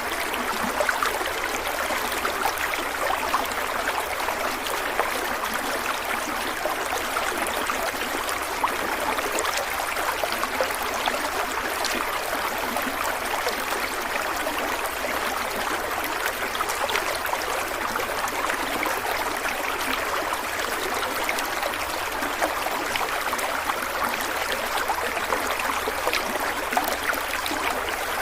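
Stream water flowing and trickling steadily, with fine splashing and gurgling.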